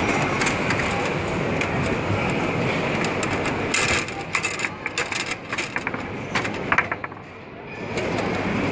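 Foosball in play: the ball and plastic player figures knock and clack against each other and the wooden table as the rods are spun, in quick irregular clacks from about halfway through. Before that, a steady din of a crowded hall dominates.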